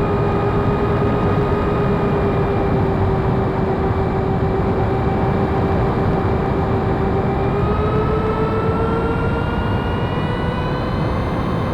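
Twin 70 mm six-blade electric ducted fans running steadily, a high whine over a rushing blast of air. The pitch rises a little about eight seconds in.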